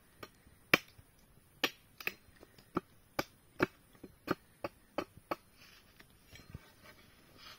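A quick, irregular series of sharp knocks or taps, about fifteen in the first five seconds, the loudest near the start, then only a few faint ones.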